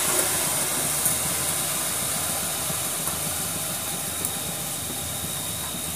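Steady hiss of a lit gas stove burner and a little water heating in the hot wok.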